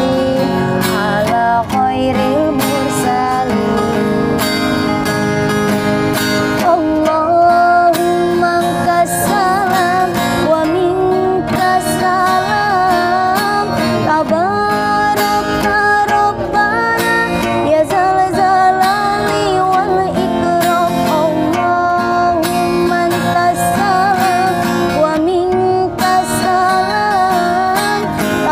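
A woman singing a sholawat, an Islamic devotional song, with a winding, ornamented melody, accompanied by a strummed acoustic guitar.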